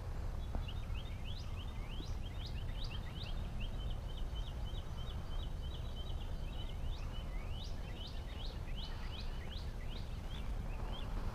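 Outdoor ambience of wind rumbling low on the microphone, with songbirds singing over it. There are quick sweeping chirps throughout and a fast, even trill in the middle.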